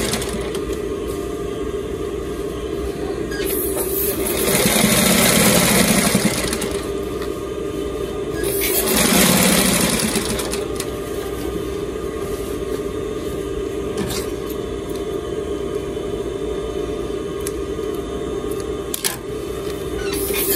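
Brother industrial lockstitch sewing machine sewing piping onto cloth. Its motor hums steadily throughout, and the needle runs in two bursts of stitching a few seconds long, about four and nine seconds in.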